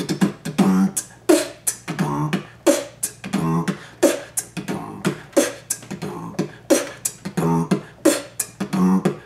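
Human beatbox: an even, fast rhythm of mouth-made kick and snare hits, about three a second, with short hummed low notes woven in.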